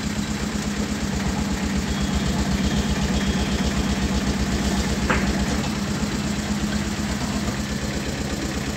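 Delivery vehicle's engine running at low revs, a steady, even throb with a constant hum.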